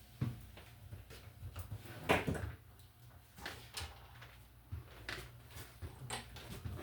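Scattered small clicks and knocks of hands handling tools and wiring, with a louder clatter about two seconds in, over a steady low hum.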